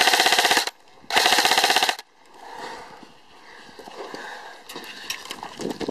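Airsoft electric rifle firing two short full-auto bursts, each a rapid string of shots, the second starting about a second in. After that only faint rustling and scattered light clicks remain.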